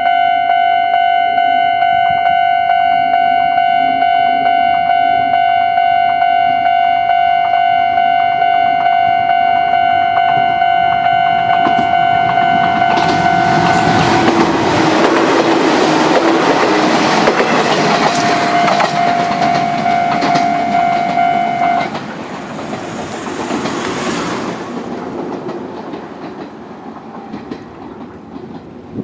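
A Japanese level-crossing alarm rings in a steady, pulsing tone while an Izuhakone Railway 3000 series electric train comes through the crossing, its wheels clattering over the rail joints from a little under halfway in. The alarm stops about three quarters of the way through, and the train's noise then fades away as it leaves.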